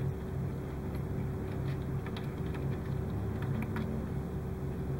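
Light, irregular clicks and ticks of fingers handling thin wires and LED leads against a plastic model kit hull, over a steady low hum.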